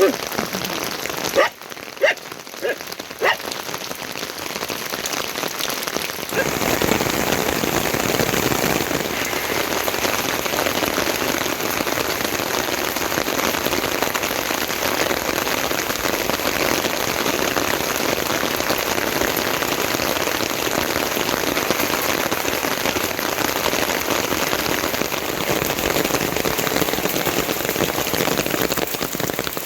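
Heavy rain falling steadily. In the first few seconds a handful of separate louder drips land, then about six seconds in the rain becomes a denser, louder hiss.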